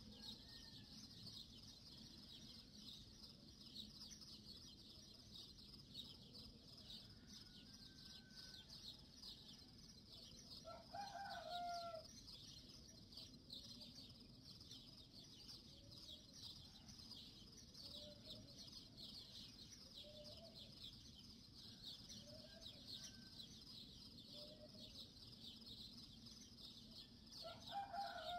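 A rooster crowing twice, about eleven seconds in and again near the end, with hens clucking softly in between, over a steady high chirring in the background.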